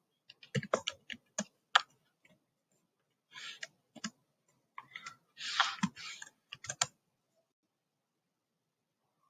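Computer keyboard keystrokes in short, irregular runs as code is typed, with a brief hissing rush in the middle. The typing stops about seven seconds in.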